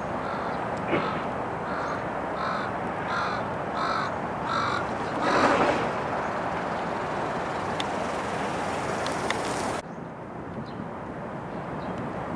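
A crow cawing, a quick run of about six short caws followed by one louder caw, over a steady background rush that thins abruptly about three-quarters of the way through.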